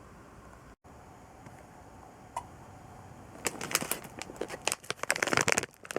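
Plastic lollipop packaging crinkling as it is handled: after a faint hiss and a single small click, a dense run of sharp crackles starts a little past halfway.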